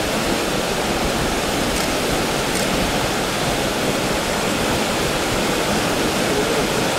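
Steady flow of Mara River water, an even, unbroken hiss.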